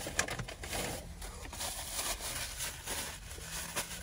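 Close-up eating noises: chewing and mouth clicks mixed with the small crackles of a paper food wrapper being handled.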